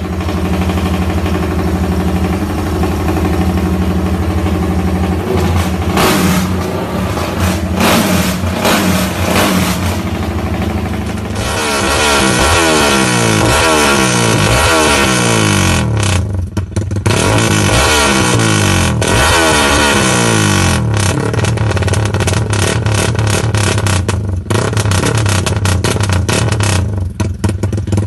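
Modified single-cylinder motorcycle with a non-standard aftermarket exhaust, first idling steadily with its rumble-idle ignition timing, then revved up and down repeatedly from about eleven seconds in. In the last part it runs at higher revs with sharp crackles from the exhaust.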